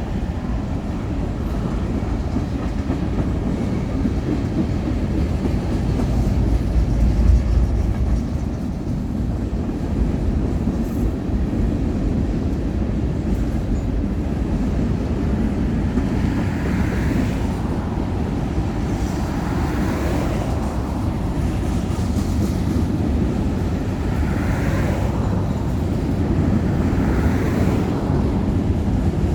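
Union Pacific manifest freight train's cars rolling by: a steady low rumble of steel wheels on rail, with a brighter rattle and clatter coming in now and then.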